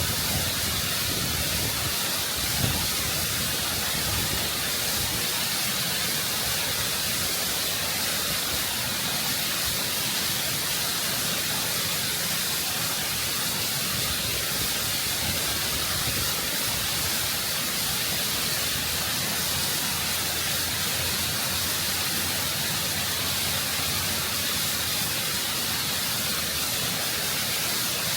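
Waterfall close up: water rushing and cascading over rock in a steady, full hiss. A brief low thump comes about three seconds in.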